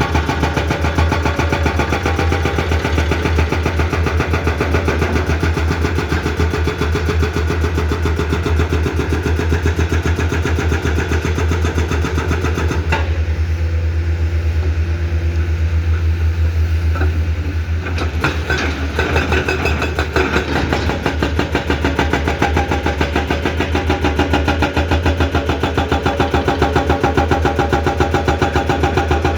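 Komatsu PC210 excavator's diesel engine running steadily with a deep, evenly pulsing hum. It eases off for a few seconds around the middle, with a few sharp knocks as it picks up again, and pulses more strongly near the end.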